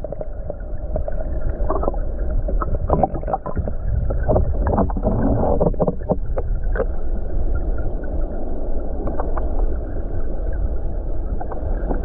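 Flowing spring water heard from under the surface through a submerged camera: a muffled, steady low rushing with many small clicks and pops, most frequent in the first half, and no high tones.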